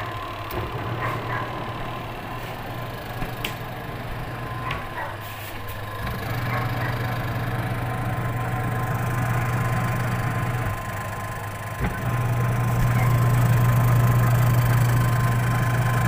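Washing machine motor running with a steady low electric hum, wired with a replacement capacitor. The hum gets louder about six seconds in, dips briefly, then comes back louder still about twelve seconds in, with a few light clicks in the first few seconds.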